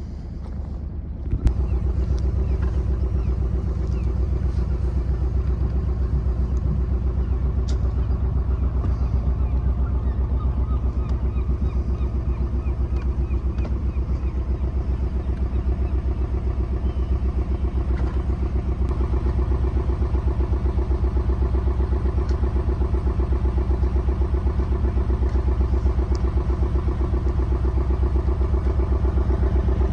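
A Contessa 26 sailing yacht's engine starting about a second and a half in, then running steadily with a fast, even chug.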